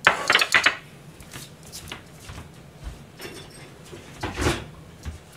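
Ceramic plates being set down on a stainless-steel counter: a quick run of clattering knocks in the first second, then another knock near the end.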